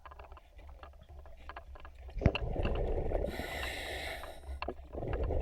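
Diver breathing underwater through a diving regulator: faint clicking, then from about two seconds in a rush of exhaled bubbles with the hiss of the regulator over it, and a second breath starting near the end.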